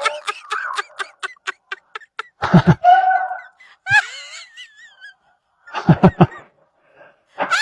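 Fake fart sound effects: a fast sputtering run of pops that slows and fades over the first two seconds, then short, low, buzzy blasts about two and a half seconds in and again about six seconds in, with squeaky, wavering high tones between them.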